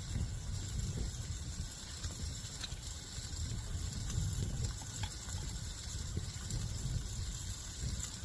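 High wind buffeting the tent, a fluctuating low rumble, under a constant high hiss, with a few faint clicks.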